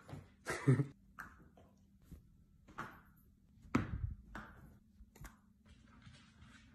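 Scattered light taps and knocks, with one louder thump about four seconds in.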